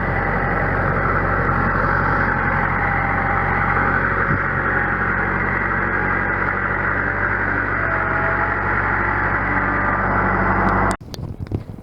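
An engine running steadily at constant speed, a low even hum with a dense mid-range drone, stopping abruptly about eleven seconds in.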